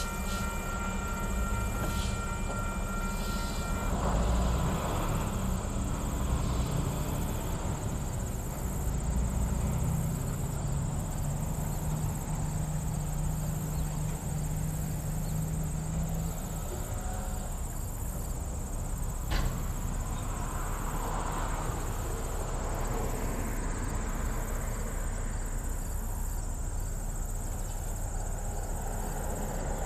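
MLW S-13u diesel end-cab switcher locomotive running steadily as it hauls a freight train, with a low engine rumble. A steady high buzz of insects runs underneath, and a single sharp click comes about two-thirds of the way through.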